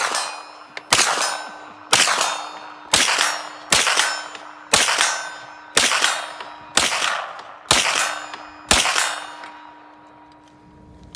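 Hi-Point 995TS 9mm carbine fired about ten times at a steady pace of roughly one shot a second. A steel target rings (pings) from the hits, and its ring lingers after the last shot.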